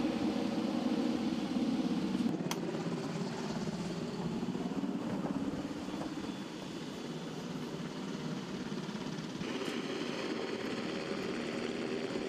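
Steady engine-like running noise from a distant machine, with a single click about two seconds in. The hiss grows brighter about nine seconds in.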